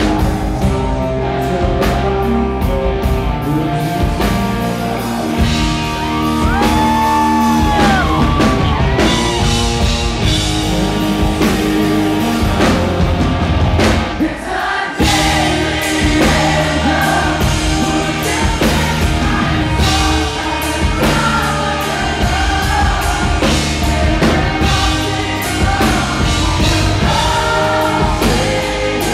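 Live rock band playing with a male lead vocalist singing over it. About halfway through the band briefly drops out, then comes back in full.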